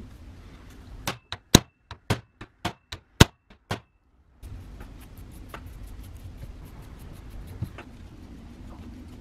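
A hammer striking a hand impact driver seated in a screw on the planer's housing to break the screw loose: about ten sharp metallic strikes in quick, uneven succession, the loudest about a second and a half and three seconds in. After that only low background with a few faint light clicks.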